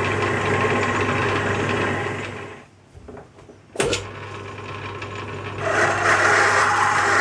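Lathe running while a boring bar cuts metal, a steady machining noise over motor hum. About two and a half seconds in it fades away, a single sharp click comes near four seconds, and the cutting noise returns louder shortly before the end.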